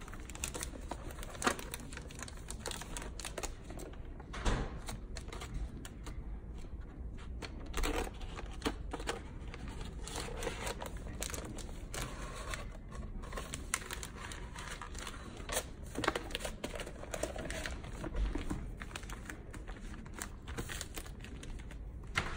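Crinkling and rustling of an Adaptaroll plastic film book cover as it is folded and fitted around a hardback by hand, with irregular clicks and taps from the sheet and the book's boards being handled.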